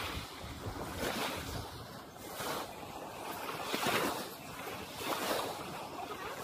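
Gentle sea waves lapping and washing, a soft rush about every second and a half over a steady background of water noise.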